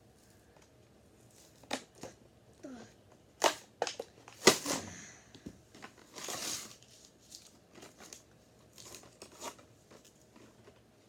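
Toy packaging being torn open by hand: cardboard and plastic blister crackling, tearing and snapping in scattered sharp bursts, the loudest snap about four and a half seconds in, then a longer rustling tear and lighter crinkles.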